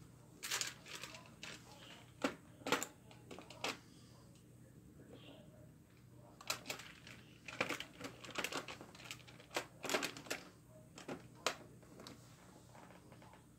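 Plastic magnetic building tiles clicking and clacking as they are handled and snapped together onto a tile house, in irregular clusters of sharp clicks.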